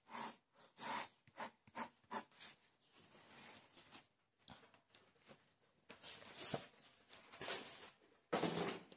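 Pen scratching on paper in a string of short strokes, crossing out terms and drawing a box around them, with a few longer scribbling passes in the second half.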